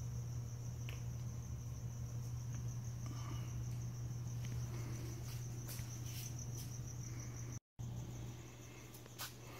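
Insects chirring on one steady high note over a steady low hum, with a few faint knocks. The sound drops out completely for a moment about three-quarters of the way through.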